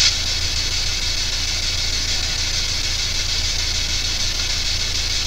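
Steady static hiss over a low electrical hum, with a brief click at the very start.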